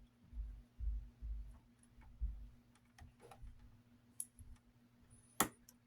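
Handling of small plastic fan parts as a fan blade and its retaining clip are fitted onto the motor shaft: soft knocks and bumps, then a few light clicks, with one sharp click near the end.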